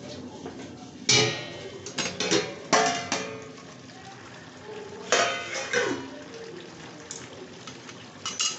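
A steel lid is lifted off a steel kadhai and metal utensils clank and scrape against the pan in several loud clatters, the first about a second in, with the chicken curry simmering quietly in between.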